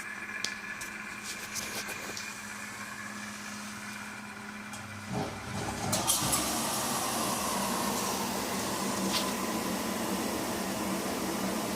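Izola Apollo 636W washing machine running with a low steady hum; about five seconds in it clicks over into a louder steady hissing run with a faint whine.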